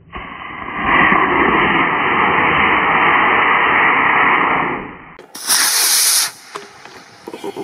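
A model rocket's B6-4 black-powder motor ignites and its exhaust hisses steadily for about five seconds, then cuts off sharply. About half a second later comes a second, shorter and brighter rush lasting about a second.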